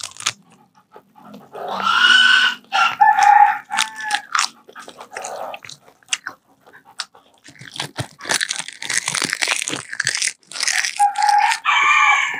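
Crispy seaweed snack crunching as it is bitten and chewed close to a clip-on microphone, with the crinkly snack packet handled, crackling thickest in the middle. Twice, a loud, high, drawn-out call sounds over it.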